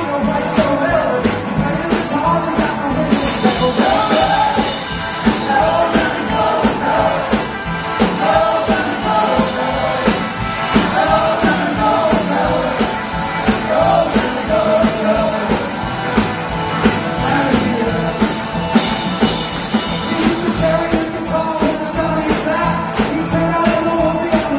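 Live 1950s-style rock and roll band playing: electric guitar, upright bass, piano and drums with a steady beat, under lead and backing singing.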